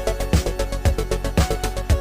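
Background music with a steady electronic beat, a kick drum about twice a second under sustained synth notes.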